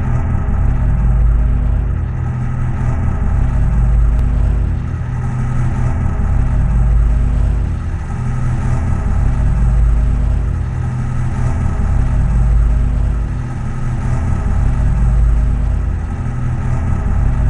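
A deep, steady rumbling drone of film sound design, swelling and easing back about every three seconds, with faint held tones above the rumble.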